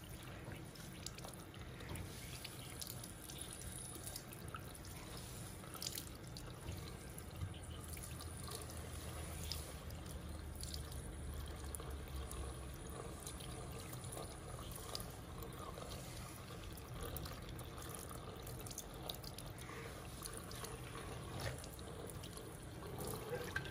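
Water from a handheld shower sprayer running over a scalp and splashing into a wash basin, a steady trickle with scattered drips.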